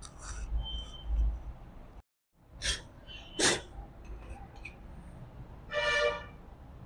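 Cloth rubbing and handling sounds as the metal oil pan of an industrial sewing machine is wiped clean. Two short, sharp noises come close together midway, and a brief pitched squeak near the end.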